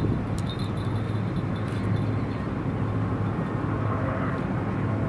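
Outdoor background noise dominated by a steady low mechanical hum, with a few faint light clicks in the first two seconds.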